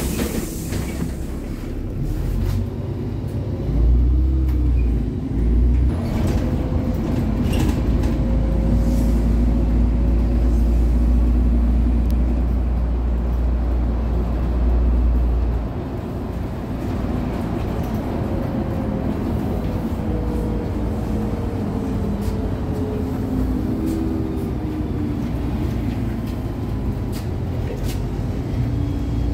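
LiAZ 5292.65 city bus heard from inside the passenger cabin while driving: engine and road noise with a heavy low rumble that drops off sharply a little past halfway, and a faint whine that rises and falls with engine speed.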